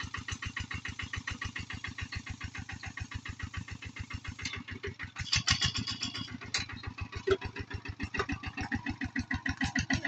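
Kubota two-wheel walking tractor's single-cylinder diesel engine idling in an even beat of about eight firings a second. A few sharp knocks sound over it between about four and a half and seven and a half seconds in.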